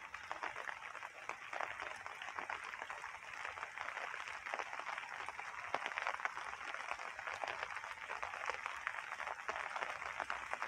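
Rain falling steadily, a dense crackle of many small drop impacts.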